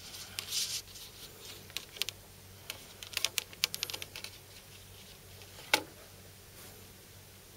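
Light clicks, taps and rubbing of a hand handling a vinyl LP, laying a 12-inch record on top of a larger 16-inch transcription disc on a turntable. One sharper tap comes near the end.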